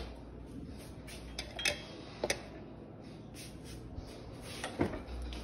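A few scattered light clicks and knocks, the sharpest right at the start and again near the end, over faint steady background noise.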